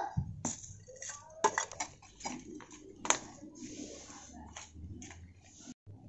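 Broken terracotta pot shards and flat stone pieces clinking and clattering as they are handled and dropped together by hand, a string of sharp irregular clicks.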